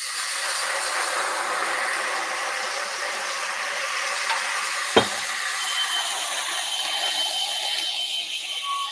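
Sherry sizzling in a screaming-hot pan: a steady, even hiss. A single sharp knock comes about halfway through, and a faint steady high tone joins soon after.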